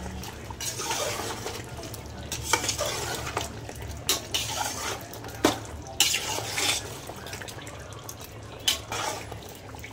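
Slotted metal spoon stirring mutton masala in a large metal pot, knocking and scraping against the pot about five times, over the sizzle of the cooking gravy.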